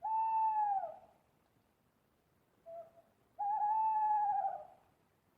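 An owl hooting: a long hoot that drops in pitch at its end, a short, lower note about two and a half seconds in, then a second long, slightly wavering hoot.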